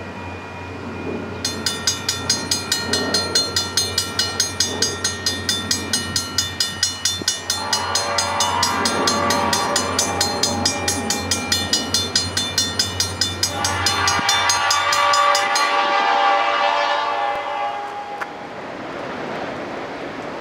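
Railroad grade-crossing bell ringing in an even rhythm of about three strikes a second, stopping about fifteen seconds in. A train horn sounds two long blasts, the first starting about seven seconds in and the second about thirteen seconds in, over a low engine hum, and a quieter rumble of the train follows.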